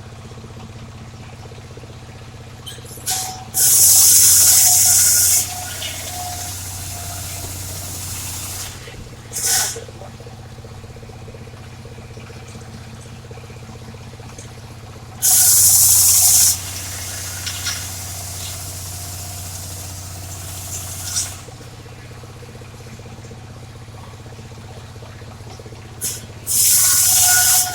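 Homemade table-mounted circular saw running steadily and ripping dry waru wood. Three cuts come about eleven seconds apart, each a loud, high, hissing rasp with a whine, lasting one to two seconds. Short brief bites of the blade come in between.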